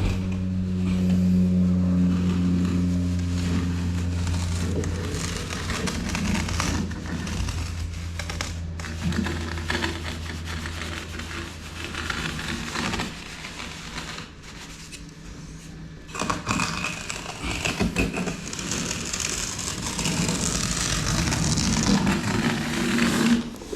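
Background music fades out over the first several seconds. Then come uneven scraping, crackling and knocking sounds of hands-on work, busiest in the last few seconds.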